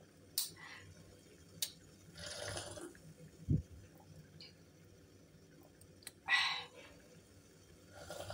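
Someone sipping a thick blended cucumber juice from a glass: a few short slurps and a swallow, with small clicks in between and quiet pauses; the loudest slurp comes about two-thirds of the way through.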